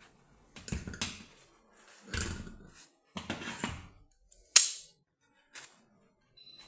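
Vice grips and a paper towel being worked onto a stainless steel fitting: three short bursts of rustling and scraping, then a single sharp metallic snap about four and a half seconds in, and a small click a second later.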